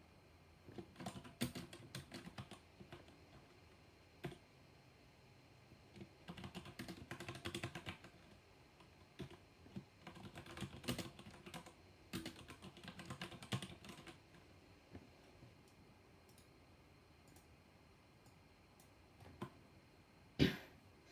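Typing on a mechanical keyboard with black switches: fast runs of key strikes in bursts separated by pauses, quiet for a few seconds near the end, then a single louder key strike.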